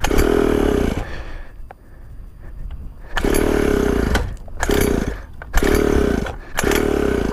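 Pocket bike's small two-stroke engine being pull-started: about five quick yanks of the recoil cord, each cranking the engine briefly without it catching, with a pause of about two seconds after the first pull.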